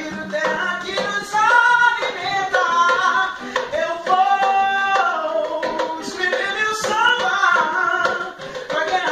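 A man singing a pagode samba song, accompanied by a strummed classical guitar and a pandeiro struck by hand.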